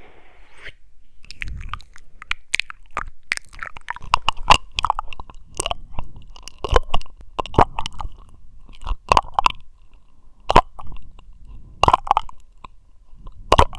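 Close-microphone ASMR trigger sounds: irregular crisp clicks and crunches, sometimes several in quick succession, with short gaps between clusters.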